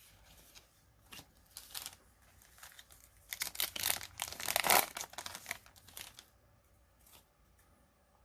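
Foil booster-pack wrapper crinkling and tearing as it is handled and opened, in a run of crackly rustles that is loudest around the middle and dies away after about six seconds.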